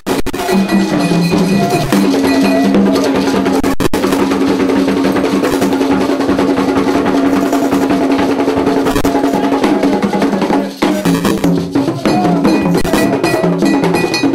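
Vodou ceremonial music: drums and a struck metal bell, cowbell-like, keep a steady rhythm under group singing with long held notes.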